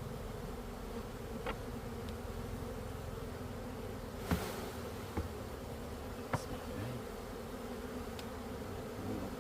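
Honeybees buzzing in a steady hum, with a few short knocks or taps over it, the loudest a little over four seconds in.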